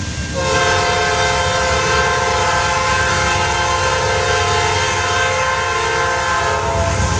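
Multi-chime air horn of a Norfolk Southern GE Dash 9 freight locomotive sounding one long blast, a chord of several steady tones that starts about half a second in and cuts off near the end. Beneath it runs the low rumble of the working diesel locomotives.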